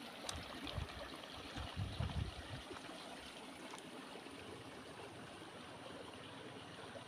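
A small stream flowing over stones: a steady, faint wash of running water. A few low bumps hit the microphone in the first two seconds or so.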